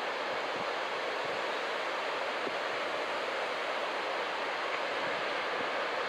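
Steady, even rush of breaking ocean surf.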